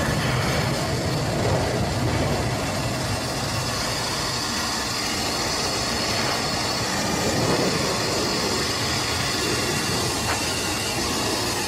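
Steady rumble and hiss of engine and rushing air inside a fighter jet's cockpit during hard manoeuvring. The hiss grows brighter from about four seconds in.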